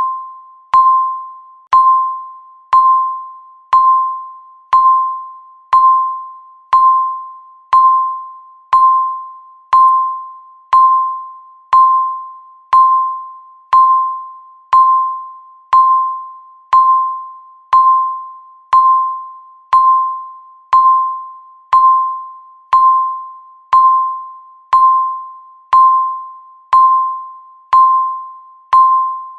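Countdown timer beep: a single pitched electronic tone struck once every second, each one starting sharply and fading away before the next.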